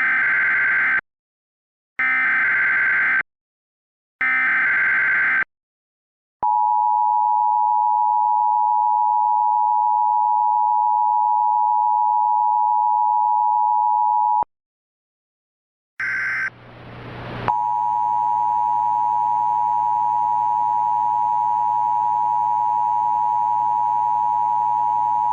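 Emergency Alert System tones: three short bursts of SAME header data screech, then the two-tone attention signal held steady for about eight seconds. After a short silence come one more data burst and a second steady alert tone over a background of hiss and hum.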